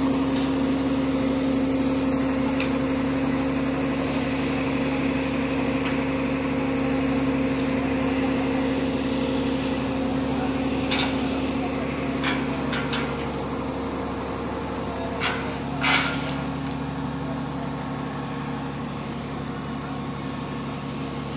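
Crane engine running steadily with an even hum. Several short sharp knocks come in the second half.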